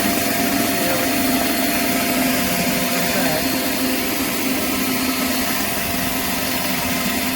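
Pressure washer running steadily, its high-pressure spray hissing under a 16-inch spinning surface cleaner on concrete, with a constant low hum beneath.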